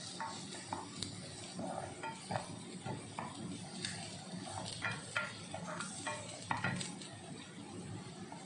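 Spatula stirring and scraping chopped onion and garlic as they fry in a speckled granite-coated pan, with a low sizzle underneath. The scrapes come in short, irregular strokes about once or twice a second.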